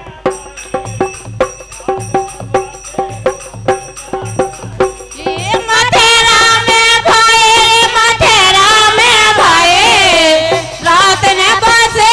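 Kartik geet folk song: drum strokes and a steady instrumental accompaniment for about the first five seconds, then women's voices singing the verse from about six seconds in.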